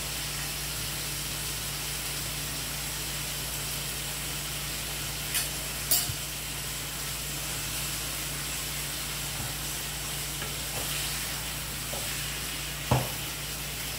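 Mussels in a spice masala frying in a kadai with a steady sizzle while a wooden spatula stirs them, with a few sharp knocks of the spatula against the pan, the loudest about a second before the end.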